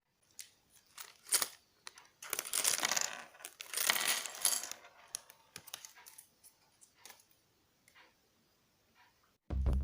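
Small plastic Lego pieces clattering: a few sharp clicks, then two longer rattling bursts about two and four seconds in, then scattered light clicks. Music with a drum beat starts right at the end.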